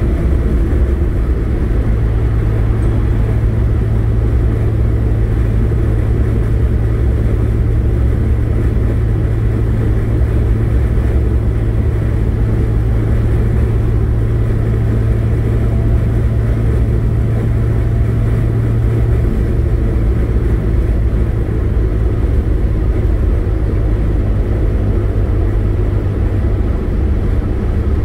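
Car driving at road speed, heard from inside the cabin: a steady low engine drone over tyre and wind rumble. The drone weakens about two-thirds of the way through.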